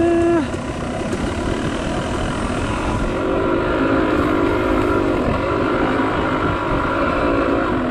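Dirt bike engine ridden along a dirt trail at fairly steady revs, with a short rise in revs about half a second long right at the start.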